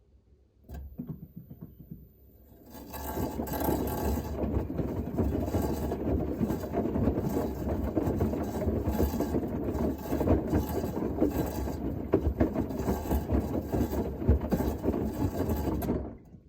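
Washing machine running with a scraping, rattling noise full of sharp clicks: a few short knocks, then from about three seconds in a loud continuous scrape and rattle that stops suddenly near the end. This is the unwanted noise the machine is making.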